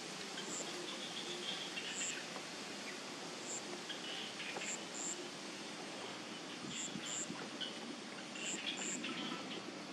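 Outdoor rural ambience: a steady, even hiss with short, high chirps scattered through it.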